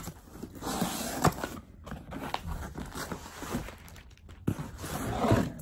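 A cardboard parcel box being opened by hand: the flaps are pulled open and the packaging rustles and scrapes, with scattered sharp clicks of cardboard.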